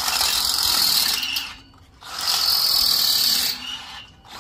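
Power drill boring into steel with a harsh, high-pitched grinding squeal, in two bursts of about a second and a half with a short pause between. The cheap bit's edges are dull and it is barely cutting.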